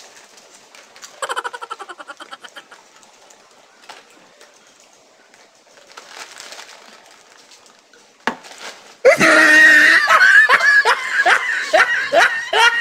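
Young people laughing: a loud fit of rapid, repeated ha-ha syllables starts about nine seconds in and lasts several seconds, after a short, softer giggle about a second in.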